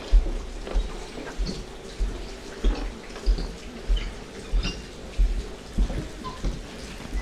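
Rain falling, with scattered small drip-like ticks, over a regular low thump repeating about every 0.6 seconds.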